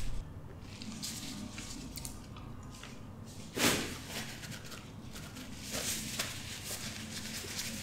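Paper napkin rustling and crumpling in gloved hands, with one louder brief swish of the tissue a little past halfway.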